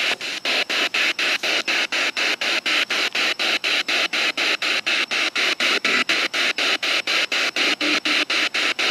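Spirit box sweeping the radio band in reverse at a 250-millisecond sweep rate, antenna down: a hiss of radio static chopped into short bursts about four times a second.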